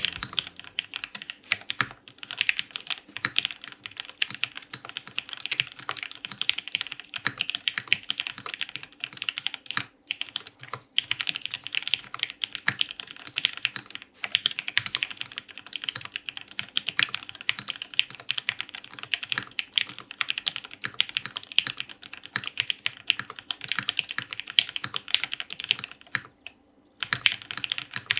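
Fast, continuous typing on an HH60 prototype mechanical keyboard: a dense stream of keystroke clacks, pausing briefly near the end.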